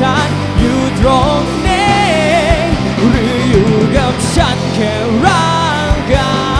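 Live pop-rock band playing: electric guitars, bass and drums keeping a steady beat, with a sung vocal line over them.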